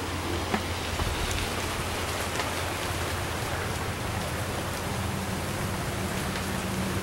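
Steady patter of falling water, rain-like, with scattered light ticks over a low steady hum.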